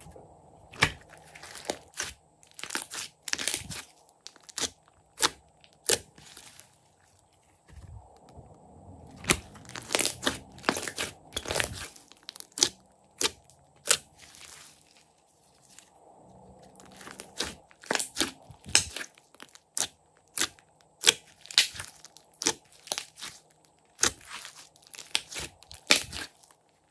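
Hands squeezing and kneading a large lump of slime, trapped air popping and clicking in irregular bursts of sharp crackles.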